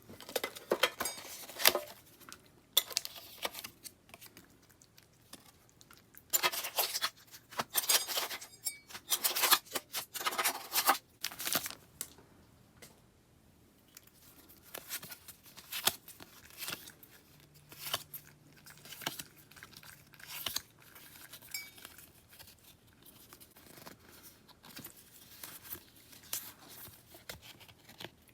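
Packaging being torn open and crinkled by hand: irregular bursts of ripping and rustling, heaviest in the first dozen seconds, then lighter handling with small taps and crinkles.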